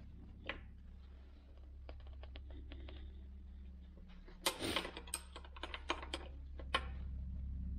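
Metal open-end wrench clicking against a hydraulic hose flare nut as it is worked tight: a few light clicks, then a quick run of sharp metallic clicks from about four and a half to seven seconds in.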